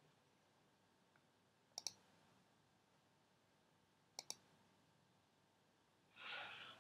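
Computer mouse clicks: two quick double clicks, one about two seconds in and another about four seconds in, as tree items are clicked open. A short breath-like hiss follows near the end.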